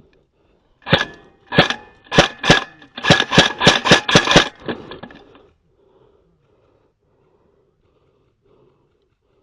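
Airsoft gun firing: a few single pops, then a quick string of about eight shots, several a second, that stops about five seconds in.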